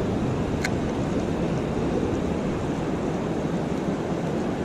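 Steady rush of river water in the tailrace below a dam, with one faint short tick about half a second in.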